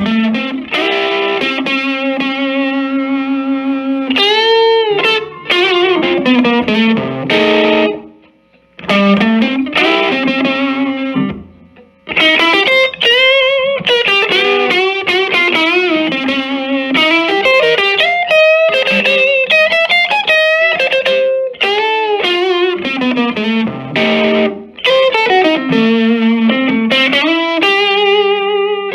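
Electric guitar, a 335 semi-hollow on its neck pickup, played through a 1965 Silvertone 1484 tube amp with channel 1 cranked: single-note lines with string bends and vibrato. The playing stops briefly twice, about 8 and 11 seconds in.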